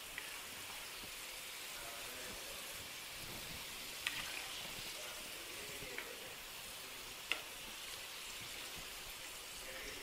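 Battered chicken pakoda pieces frying in hot oil in a clay pot, a steady sizzle, with a few sharp clicks of the spoon against the pot about four, six and seven seconds in.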